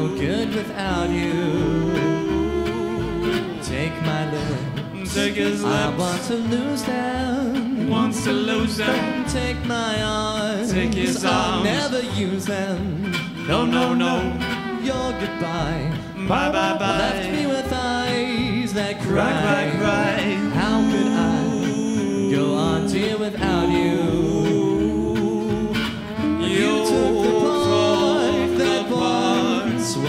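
Live gypsy jazz band playing a song: two acoustic guitars strumming rhythm, a plucked upright bass marking the beat and a violin, with singing.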